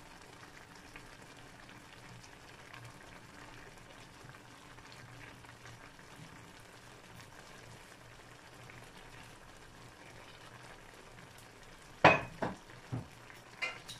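Sliced chayote and tomato sizzling quietly and steadily in a frying pan on a gas stove. Near the end, a sharp knock is followed by a few smaller knocks.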